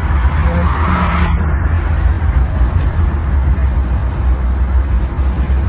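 Steady low rumble of a moving car with road noise, heard from inside the vehicle.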